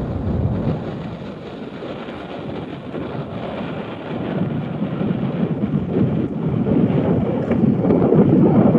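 Wind buffeting the microphone, a gusty rush that grows louder over the last few seconds.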